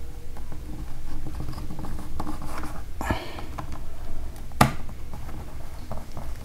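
Plastic bottom cover of a Dell Inspiron 3180 laptop being pried off its base by fingernails, scratching and scraping along the seam. Two sharp clicks come about three and about four and a half seconds in as the snap-fit clips let go.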